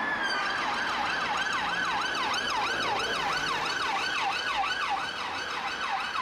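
UK police car's electronic siren. It switches from a held tone into a fast yelp that sweeps up and down about two and a half times a second, over a faint hum of road traffic.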